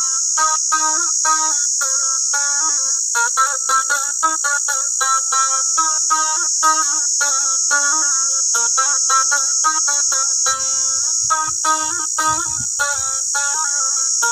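A long-necked fretted wooden lute played solo: a fast run of plucked melody notes over a steady drone string. A steady high insect shrill sits under it, with a few soft low thuds about ten seconds in.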